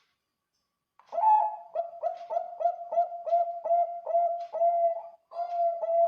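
Zebra dove (Bangkok perkutut) singing: after about a second of silence, a quick string of short cooing notes, about three a second, then a brief break and longer, drawn-out coos.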